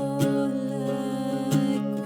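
Acoustic guitar strumming slow chords in an instrumental passage, two strums about a second apart with the chords ringing on between them.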